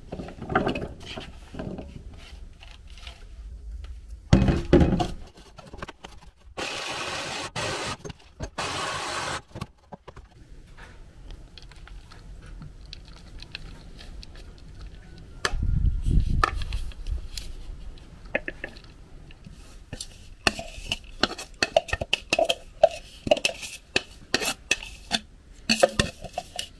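Small electric chopper-blender running twice in short bursts as it grinds soaked acorns. Around these are knocks and clatter from the plastic chopper bowl being handled, tapped and scraped as the coarse acorn meal is tipped into a ceramic bowl.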